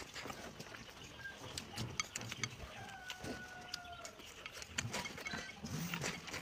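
Close-up eating sounds: wooden chopsticks clicking and scraping against a bowl as rice and potatoes are shovelled in, with wet chewing and mouth noises.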